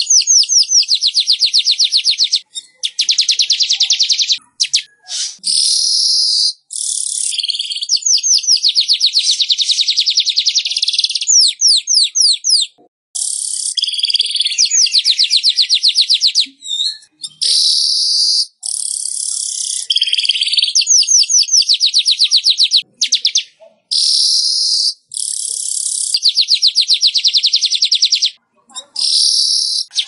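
Manyar weaverbird singing: repeated bursts of very fast, high-pitched chattering trills, each one to a few seconds long, broken by short pauses.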